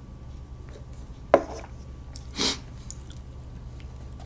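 Eating-show sounds as a drink is sipped from a takeout paper cup and swallowed. A single sharp knock comes about a second and a half in, and a short breathy hiss about a second later, over a low steady hum.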